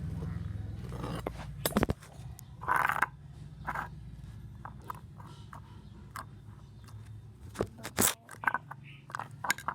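Scattered clicks, taps and short scrapes of objects being handled close to the microphone, over a steady low hum during the first two seconds.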